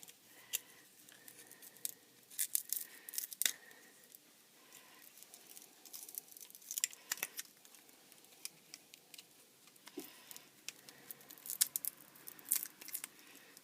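Opening tool clicking and scraping around the edge of an HTC Wildfire S digitizer as it is prised off the phone's frame, with short tearing crackles from the heat-softened adhesive letting go. The clicks come in scattered clusters.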